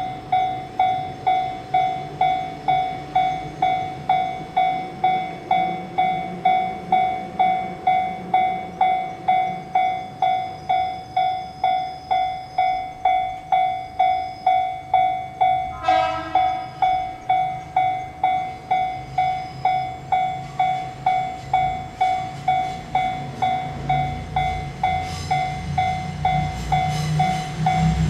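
Level-crossing warning bell dinging steadily, about two strikes a second, as a train approaches. A single short horn blast sounds about halfway through. Near the end the train's rumble and wheel clicks rise under the bell as it reaches the crossing.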